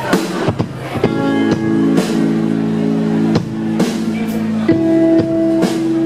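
Live band playing a song: sustained chords over drum hits, with the chord changing a little under five seconds in.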